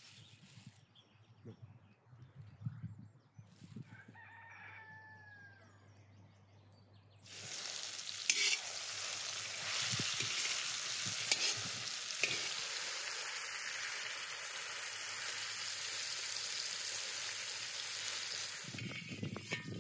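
Sliced zucchini frying in hot oil in a wide shallow pan: a loud, steady sizzle that starts suddenly about seven seconds in and carries on until near the end, with a few sharp clicks as a metal skimmer turns the slices. Before the frying starts, a rooster crows once over quiet outdoor ambience.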